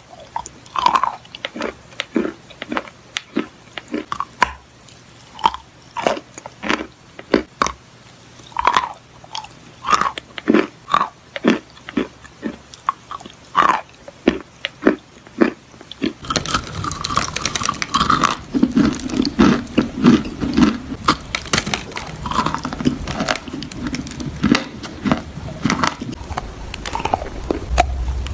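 Close-up chewing and biting of chalk: sharp, irregular crunches a few a second, with wet mouth sounds. About 16 s in the sound changes to denser, fuller chewing and crunching.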